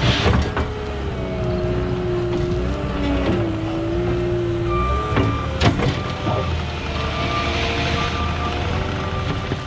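Cat 289D compact track loader's diesel engine running under working load, its pitch rising and falling as the hydraulics work. Its backup alarm starts beeping about halfway through as the machine reverses. There are a couple of sharp knocks, the loudest just past the middle.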